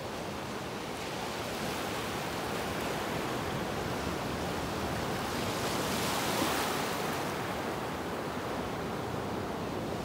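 Ocean surf breaking and washing up the shore, a steady rush that swells to its loudest about six seconds in and then eases.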